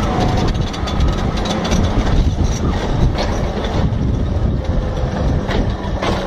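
Crawler bulldozer's diesel engine running as the machine tips over and slides down a rocky slope, with its steel tracks and body clanking and loose rocks rattling and crashing around it.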